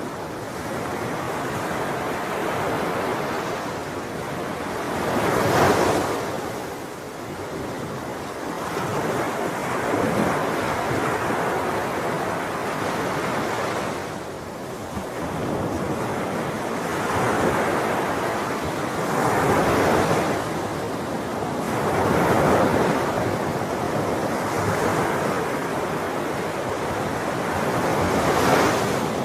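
Sea waves breaking and washing on a shore, the surf swelling and ebbing every few seconds, with some wind.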